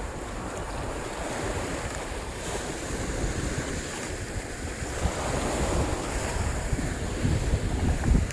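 Wind buffeting the microphone over the steady wash of sea water and waves, with gusty low rumbles that grow stronger near the end.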